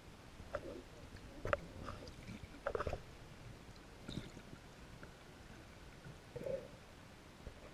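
Muffled underwater sound picked up by a camera held underwater: scattered knocks and clicks and a few short gurgles, the loudest about a second and a half in and again around three seconds in.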